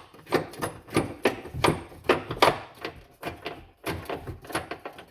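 Repeated irregular metal knocks and clanks, about two or three a second, as a carriage bolt and spacer on a fish wire are worked back and forth inside a vehicle's frame rail, snagged on something inside the rail.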